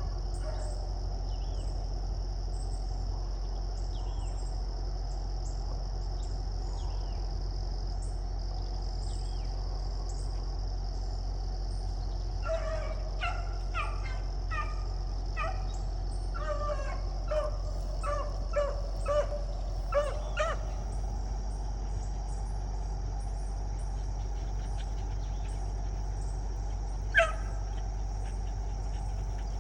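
Beagles giving tongue at a distance: a run of short, pitched bawls between about 12 and 20 seconds in and a single one near the end, the sound of hounds running a rabbit's scent. A steady high insect drone continues underneath.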